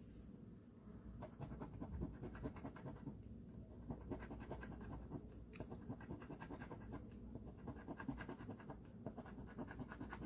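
Scratch-off lottery ticket being scratched, its coating scraped away in quick, faint, repeated strokes with brief pauses between runs.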